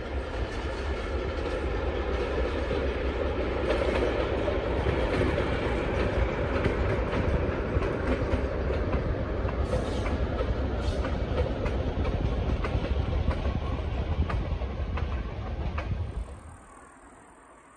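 A train running on the track: a steady rumble with wheels clicking over rail joints. The sound drops away sharply near the end.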